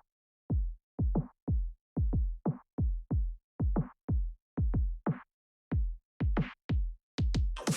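Drum machine beat alone: deep kick drums that drop in pitch after each hit, with lighter snare-like hits between them and clean silence in the gaps, about two to three hits a second. A full band sound with guitar comes in right at the end.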